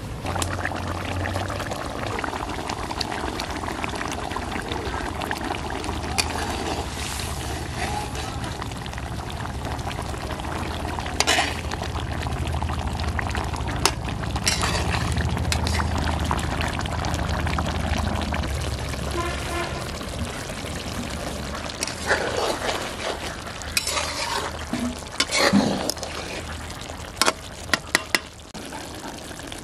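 Fish curry gravy simmering in a metal karai over a wood fire, with a metal spatula stirring and scraping through it. Now and then the spatula knocks against the pan with sharp clinks, several in quick succession near the end.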